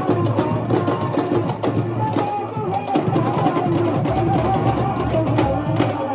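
Drum and percussion music with sharp, frequent strokes, and a wavering melody line above the beat.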